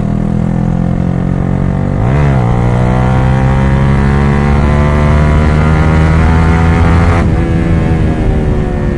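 Yamaha R15 V3's 155 cc single-cylinder engine, running loud through an open exhaust with the dB killers removed, pulling under way. Its note dips and recovers about two seconds in, climbs steadily, then breaks off and drops slightly about seven seconds in, as at a gear change.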